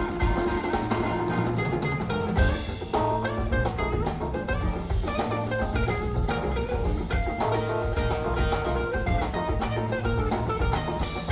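Background music: an upbeat jazzy instrumental with drum kit and guitar.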